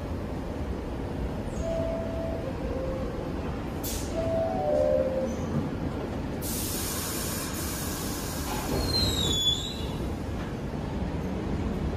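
New York City subway train in the station: a steady low rumble while it stands with doors open, short chime tones as the doors close, a loud burst of air hiss about six and a half seconds in, and a brief squeal a couple of seconds later. Near the end the train starts to pull out with a rising motor whine.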